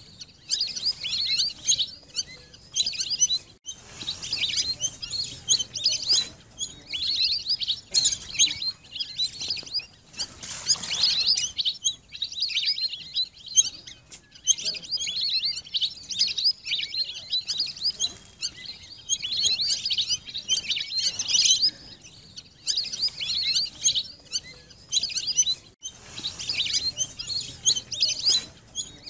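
A flock of lesser whistling ducks calling: many short, high whistled notes overlapping in bursts of a second or two, with brief pauses between them.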